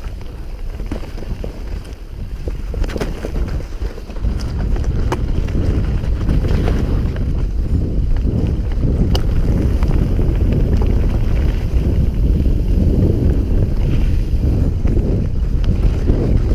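Wind buffeting an action camera's microphone on a mountain bike descending a dirt forest trail at speed, with the tyres rumbling and the bike rattling over roots and stones in scattered sharp clicks. The rush grows louder about four to six seconds in as the bike picks up speed.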